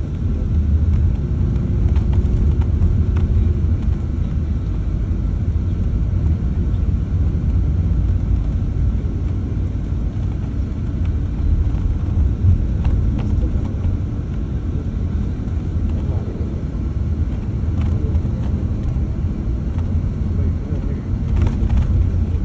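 Steady low rumble of a moving vehicle, running evenly with a few faint clicks and knocks.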